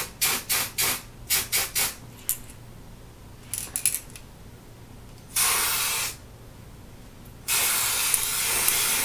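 Aerosol can of temporary coloured hair spray sprayed onto hair. It starts as a quick run of about eight short puffs, then gives one spray of under a second about halfway through, and a longer steady spray near the end.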